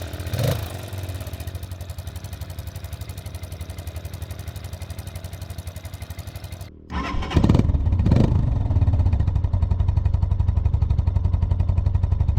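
Italika DM150 motorcycle's 150 cc single-cylinder engine idling with an even pulse, with a short rise in revs near the start. After a cut about seven seconds in it is heard louder and closer to the exhaust, blips once more and settles back to idle.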